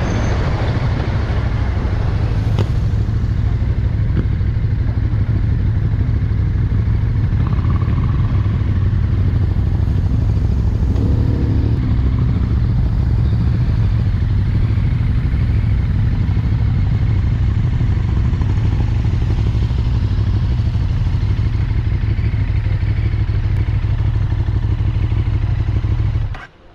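KTM 1290 Super Duke R's V-twin engine running at a steady cruise from the rider's own bike, with wind rush over it. The sound cuts off abruptly near the end.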